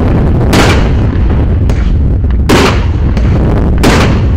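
A 105-shot fireworks cake firing in sequence, with four sharp bangs about a second apart, one of them fainter. A steady low rumble runs underneath.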